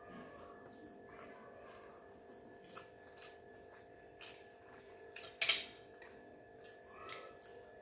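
Cutlery clinking and scraping against a dish while eating, with scattered small clicks and one louder clatter about five and a half seconds in.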